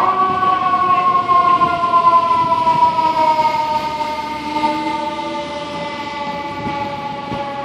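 Fire engine siren sounding as the truck pulls away. Its pitch jumps up at the start, then slowly winds down, growing a little fainter near the end.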